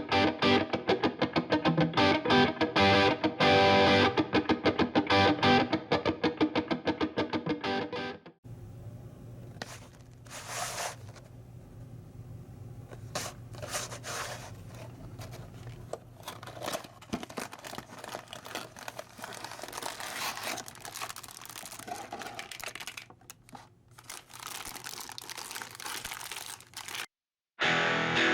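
Background music with guitar: loud for about the first eight seconds, then a much quieter, sparser passage, a brief dropout near the end, and loud again just before the end.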